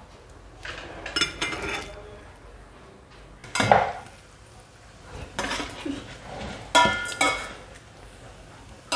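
Metal spoon scraping and clinking against the inside of a small stainless steel pot while stirring kritharaki pasta in butter. The clinks come in four or five short bursts, each with a brief metallic ring from the pot.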